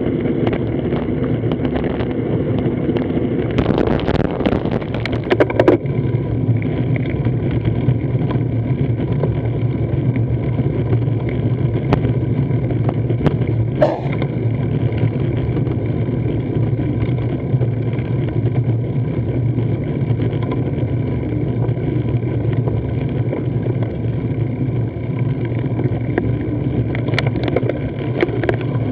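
Steady rumble and hiss of road and wind noise picked up by a camera mounted on a road bike's handlebar, with a few sharp clicks about five seconds in and again around the middle.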